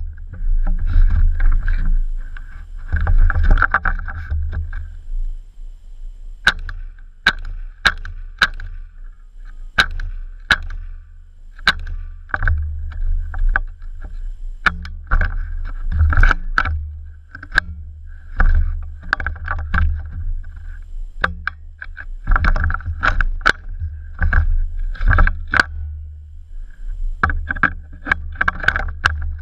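CZ858 rifle fitted with a .22 LR conversion kit firing one shot at a time at an uneven pace, about one a second, in quicker strings near the end, over a low rumbling noise.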